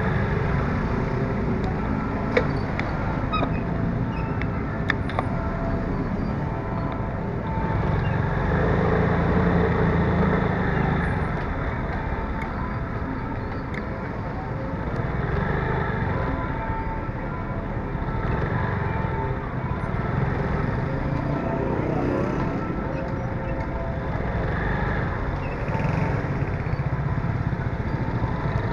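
Street traffic noise: vehicle and motorcycle engines running in slow, congested traffic, with two sharp clicks about two and a half and five seconds in.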